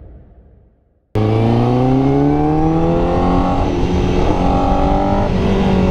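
Honda CBR1000RR-R Fireblade's inline-four engine under way, cutting in suddenly about a second in after a fading intro sound; its pitch climbs for a couple of seconds as the bike accelerates, then holds fairly steady, with road and wind noise underneath.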